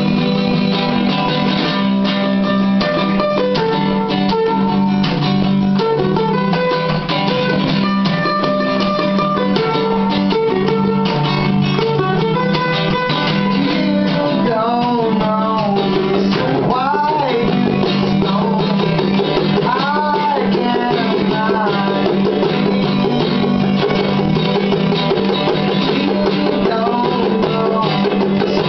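An acoustic guitar and a mandolin play a tune together. About halfway through, a voice joins in singing along.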